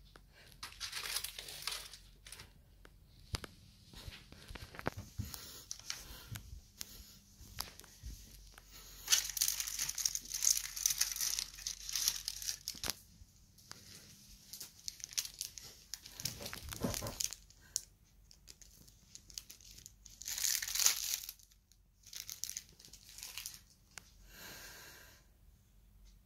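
Phone microphone handling noise: rustling and scraping as the phone, held close, rubs against hair, in irregular bursts that are loudest about nine to thirteen seconds in and again around twenty seconds in.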